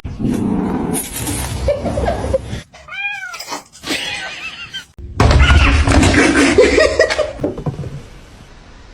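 A cat meowing: one drawn-out meow that rises and falls in pitch about three seconds in, among noisier sounds. A louder, noisy stretch starts abruptly about five seconds in and fades out toward the end.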